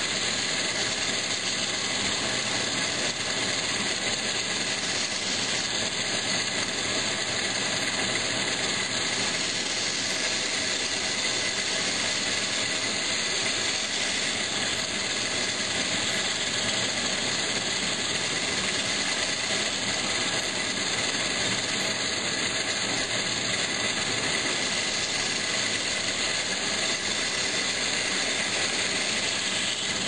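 Metal-spinning lathe running steadily with a copper kettle body turning on it: a constant whir with a high hiss that does not change.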